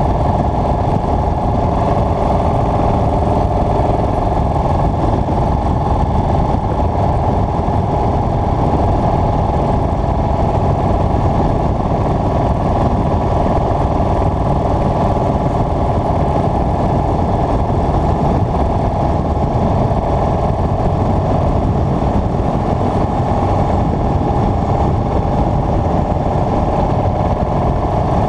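Motorcycle engine running at a steady cruising speed, an even drone that holds the same pitch and loudness with no gear changes or revving.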